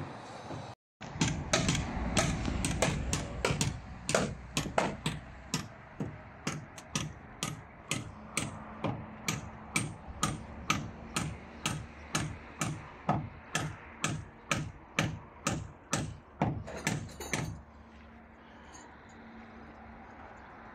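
Hammer blows, a long run of sharp strikes about two a second, which stop a few seconds before the end.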